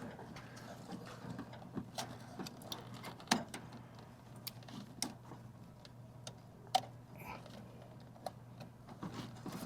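Scattered light clicks and taps of small parts being handled while a wire is reattached at a fuse block, over a steady low hum.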